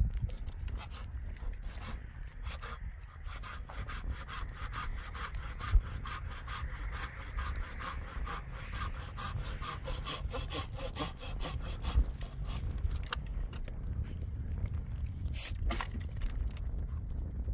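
Hand saw cutting through wood in quick, even back-and-forth strokes, the rasp strongest through the middle of the stretch, with a couple of sharper knocks.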